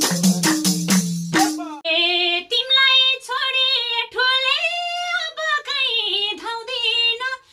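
Madal drum and tambourine playing a quick dohori rhythm, which stops about a second and a half in; then a woman sings a solo line unaccompanied, holding long notes that bend in pitch.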